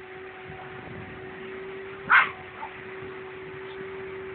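A Jack Russell terrier barks once, a short bark about two seconds in, over a steady hum.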